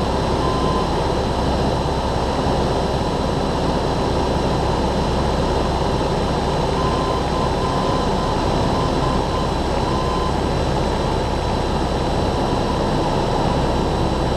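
Cessna 172N in cruise flight, heard from inside the cabin: the four-cylinder Lycoming engine and propeller make a steady, unchanging drone, mixed with airflow noise.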